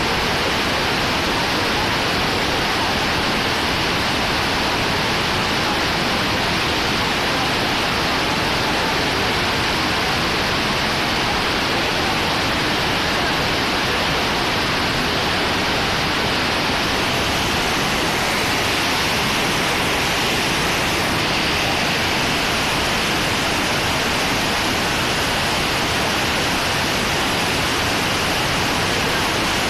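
Flooded river water rushing, a steady roar.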